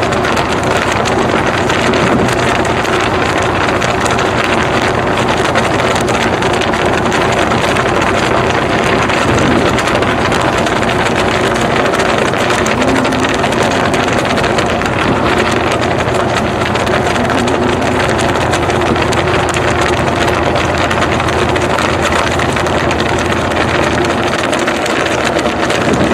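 Pickup truck driving at speed, with engine and road noise under steady, heavy wind noise on the microphone.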